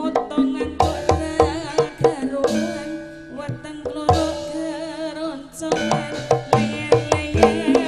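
Javanese gamelan music with crisp kendang drum strokes and ringing metal notes, and a female singer singing into a microphone over it with wavering held notes.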